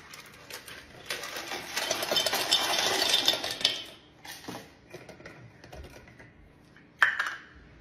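Dense rattling and clattering of small hard things in a container for about three seconds, then light handling taps and one sharp clink near the end, as kitchen containers are handled on a stone counter.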